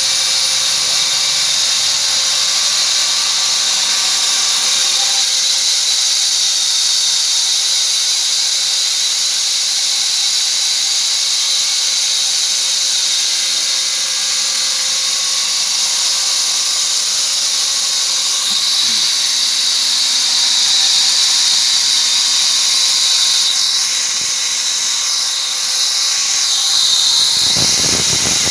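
Small double-cut bandsaw mill running: a loud, steady high-pitched whine and hiss.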